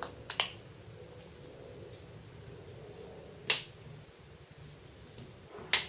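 Plastic clips of a Samsung Galaxy Note 2's plastic insert (rear frame) snapping into place as fingers press along its edge: sharp clicks, a quick group of three at the start, a single one in the middle and another near the end.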